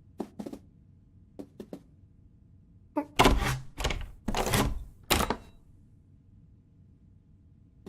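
A few short taps, then a louder cluster of knocks and thuds with some scraping about three to five seconds in.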